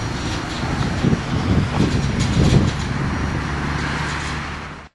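Empty grain train's covered hopper cars rolling by on the rails as the tail end passes, with wheels clicking over rail joints. The sound cuts off abruptly near the end.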